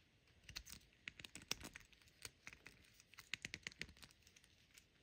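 Faint, irregular small plastic clicks and ticks as an S.H. Figuarts action figure's swapped leg section is pushed and worked onto its waist peg.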